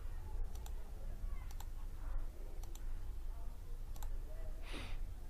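Computer mouse clicking: four quick press-and-release clicks about a second apart, as snap-mode checkboxes are ticked in a software dialog. A short breathy rush comes near the end, over a low steady hum.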